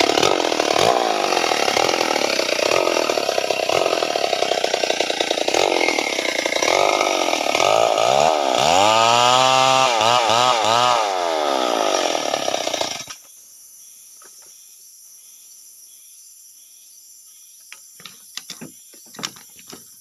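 Stihl two-stroke chainsaw running under load as it rips lengthwise through timber to make 4×4 and 2×4 beams, its engine pitch dipping and rising with the cut. It stops suddenly about two-thirds of the way through, and a few faint knocks follow near the end.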